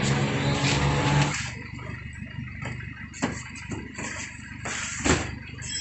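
A motor vehicle's engine runs steadily close by for about the first second and a half, then fades away. After that come scattered thumps and rustling as sacks of vegetables are handled and set down, with two sharper knocks, one about three seconds in and one near the end.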